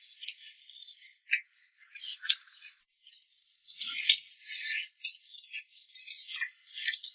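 Someone chewing food close to the microphone: irregular crackly clicks and wet mouth smacks, with a denser, rustling stretch of chewing about four seconds in.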